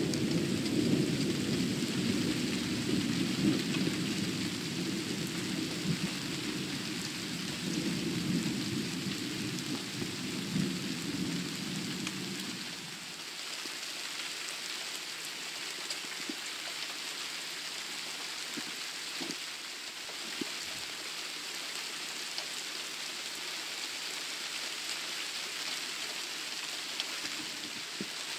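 Thunderstorm: steady heavy rain hiss with a long roll of thunder rumbling through the first twelve seconds or so, then fading out, leaving the rain and a few sharp drip ticks.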